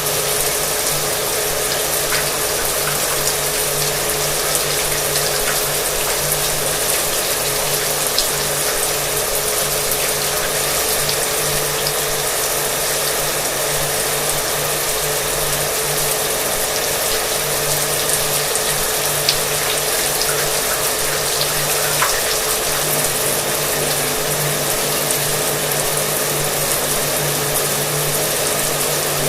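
Shower water spraying steadily, with a hair dryer running underneath as a constant motor hum. Both go on unchanged, with only a few faint ticks.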